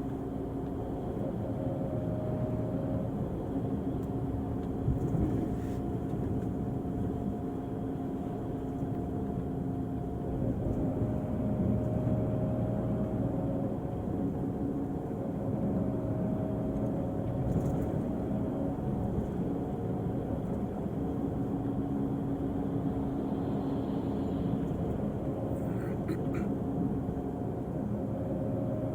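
Engine of an Irizar i6s coach on a Volvo chassis running with a steady drone, its tones stepping up or down in pitch every few seconds.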